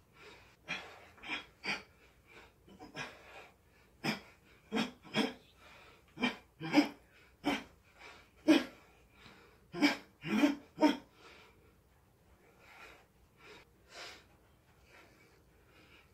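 A boxer's short, sharp exhalations through the mouth, one with each punch while shadowboxing, coming in quick runs of two or three. They are most frequent and loudest through the middle of the stretch and fainter near the end.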